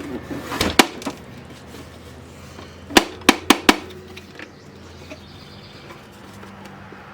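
Sharp clicks and taps from handling the hard plastic case and small parts of a boom box being taken apart: a couple about a second in, then four quick ones around three seconds in, over a low steady hum.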